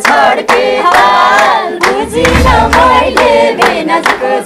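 A group of voices singing a Nepali dohori folk song together, with hand claps keeping the beat.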